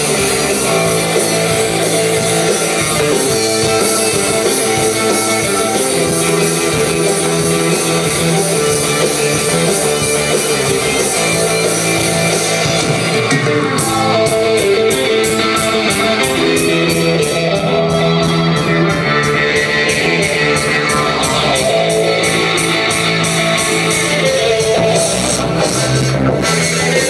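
Alternative rock band playing live, with electric guitars leading.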